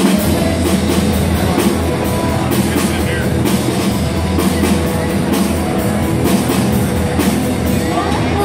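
Live rock band playing: the drum kit, guitar and bass come in together all at once, then carry on with a steady beat of drum and cymbal hits over a held bass line.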